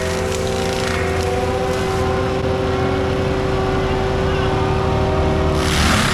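Diesel forestry compact track loader with a mulcher head, running steadily with a held whine over the engine rumble. A short burst of hissing comes near the end.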